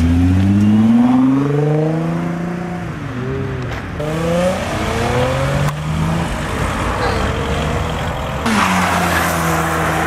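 Cars pulling away hard one after another in short cut-together clips, each engine note rising in pitch as it accelerates: first a Nissan GT-R, later a Fiat 500. Near the end a sudden rush of noise comes in over a steady engine note.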